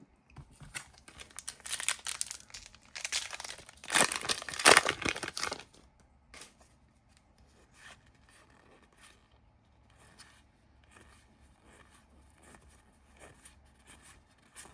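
Foil wrapper of a Pokémon TCG booster pack being torn open and crinkled, loudest a few seconds in, followed by faint clicks and rustles of the cards being handled.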